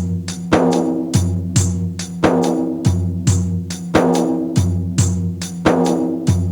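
Background music with a steady percussive beat over sustained bass notes.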